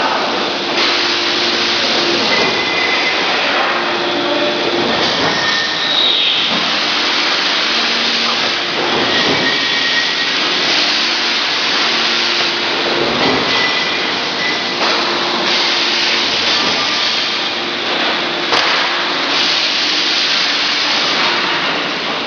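Workshop machinery running: a steady, loud rushing noise, with short humming tones coming and going over it.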